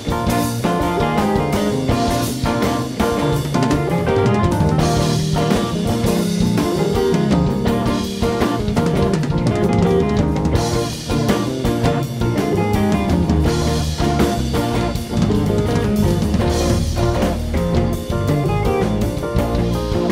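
Live rock band playing an instrumental jam: electric guitars and acoustic guitar over keyboard and a steady drum-kit beat, with no singing.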